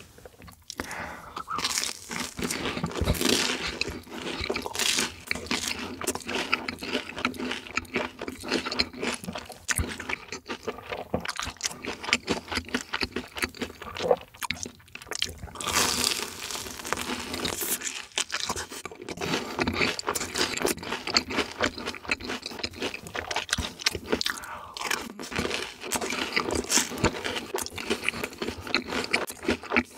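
Close-miked mukbang eating: a big mouthful of cheese-sauce-coated fried food crunching and being chewed, with wet mouth sounds. The sound starts abruptly and the crunching crackles on without a break.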